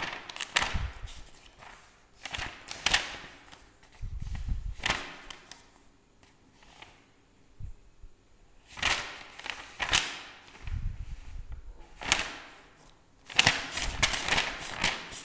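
Pages of a book being flipped and rustling in irregular short bursts with gaps between, with a few dull low thuds from handling the book.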